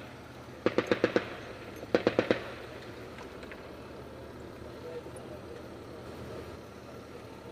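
M2 Browning .50 calibre heavy machine gun firing two short bursts of about five rounds each, about a second apart, followed by a low steady background hum.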